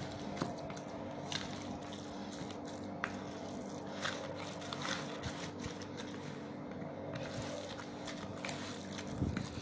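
Raw minced-meat mixture being stirred and pressed with a silicone spatula in a plastic bowl: irregular soft squishes and scrapes with a few small clicks, over a faint steady hum.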